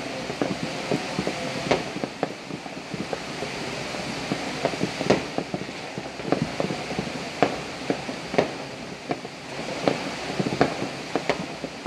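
Distant New Year's fireworks and firecrackers going off across a city: irregular scattered pops and bangs, several a second at times, over a steady background hiss.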